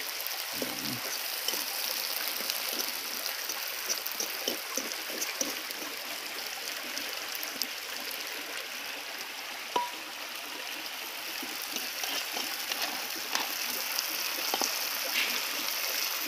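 A river running steadily, a constant rush of water, with scattered small crackles and clicks and one sharper click about ten seconds in.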